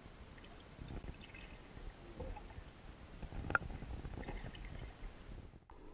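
Muffled low rumbling and water movement heard through a camera held underwater, with faint ticks and one sharp knock about three and a half seconds in.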